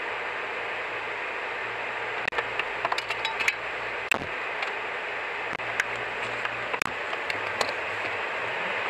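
Steady road and wind noise heard inside a moving car, over a low engine hum that starts to waver near the end. A scatter of sharp clicks and ticks comes in a couple of seconds in and keeps on for about five seconds.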